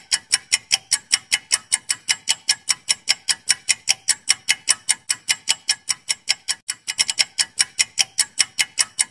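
Clock-tick sound effect for a quiz countdown timer: fast, even ticking, about four to five ticks a second, with a few ticks bunched closer together around seven seconds in.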